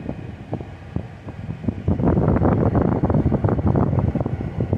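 A car moving off slowly, heard from inside the cabin. A rough, crackling rumble grows loud about two seconds in and stays loud.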